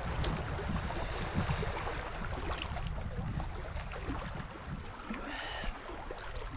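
Small sea waves lapping against stones, under a steady low rumble of wind on the microphone; a brief faint high call sounds about five seconds in.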